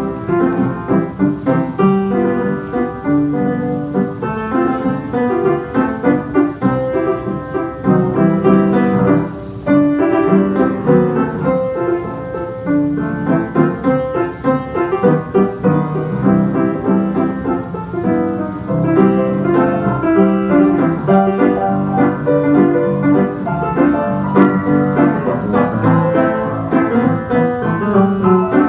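Piano music: a continuous flow of notes and chords with no pauses.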